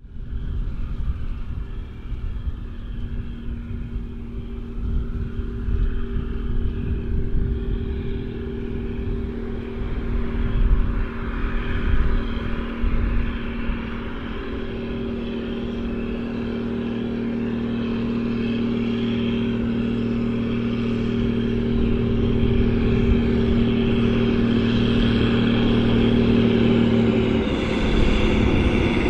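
Case 2294 tractor's six-cylinder diesel running steadily under load while pulling a Massey Ferguson 190 big baler, growing louder through the second half. Its steady drone changes near the end.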